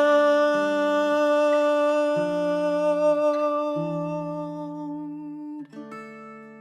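Acoustic song ending: a long held vocal note over acoustic guitar notes that step down beneath it. Near the end the guitar strikes a final chord that rings out and fades.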